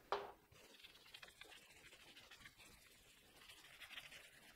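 A sharp clack just after the start, then faint, irregular rubbing strokes of an eraser wiping a whiteboard.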